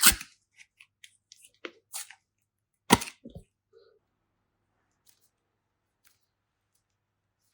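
Slime and clay handling noises: a loud knock right at the start and another about three seconds in, with small clicks and crackles between them, then near quiet for the last few seconds.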